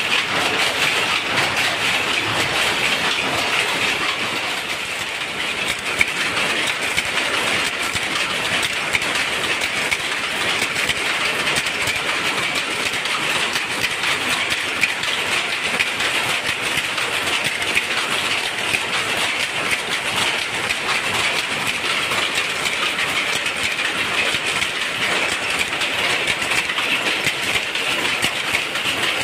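Jacquard power loom running at speed: a steady, dense clatter.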